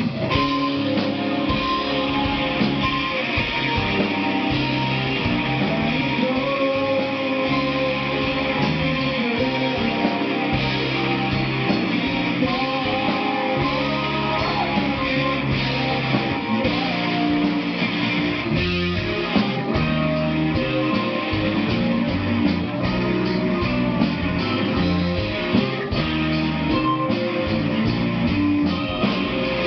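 Rock band playing live, led by electric guitar, in a continuous passage with no clear words.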